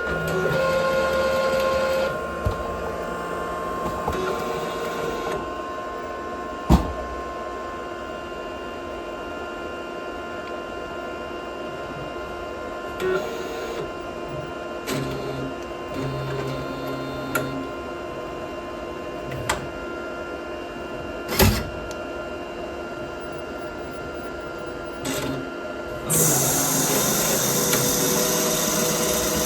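Procolored K13 Lite DTF printer running a printhead cleaning cycle: its motors whir in spells, with a few sharp clicks and clunks from the carriage and pump. The whirring is louder for the first couple of seconds and again for the last few.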